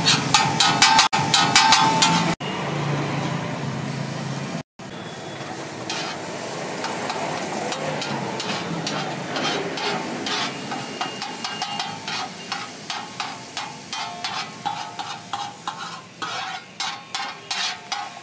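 Steel spoon scraping and tapping on a large flat iron tawa as chole with onion, tomato and paneer are mashed and stirred, over a steady sizzle from the hot griddle. The taps are loud and dense at first and become a quick regular tapping, about three or four a second, near the end.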